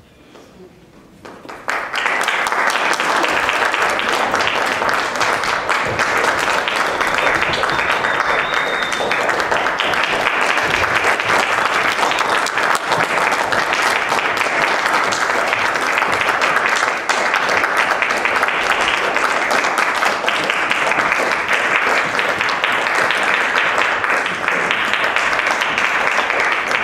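Theatre audience applauding. The clapping breaks out about two seconds in, after a hushed moment, and keeps up at a steady level.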